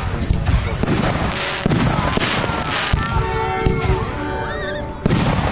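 Aerial fireworks shells bursting overhead: a string of sharp bangs and crackles about a second apart, with a loud report just before the end.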